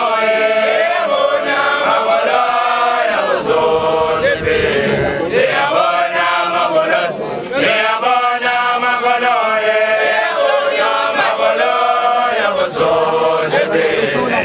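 A group of Basotho initiates (makoloane) chanting together, many male voices singing phrases whose pitch rises and falls. There are short breaks between phrases about 5 and 7 seconds in.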